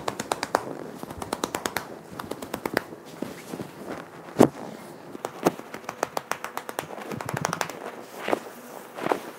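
Satin-gloved hands clapping and scrunching long curly hair set stiff with dried gel, breaking the crunchy gel cast: quick runs of crisp clicks and pats, with one louder clap about four and a half seconds in.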